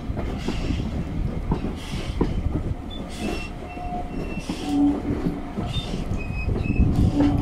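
Ivatt 2MT steam tank locomotive working a train of carriages, with slow exhaust beats about once a second over the rumble and clatter of the carriage wheels on the track. Short squeals come from the wheels on the curve, and a low steady tone sets in near the end.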